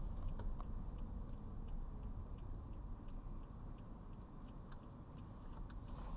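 Low rumble of a car moving slowly, heard from inside the cabin, with faint small ticks coming at a fairly even pace.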